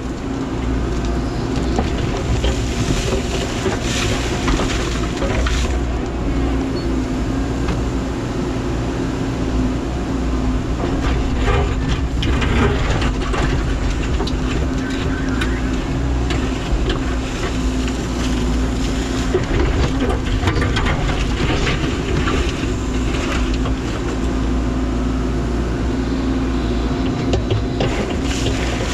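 Menzi Muck spider excavator's engine running steadily with a constant hum, working under hydraulic load, with scattered knocks and clanks as stones are handled.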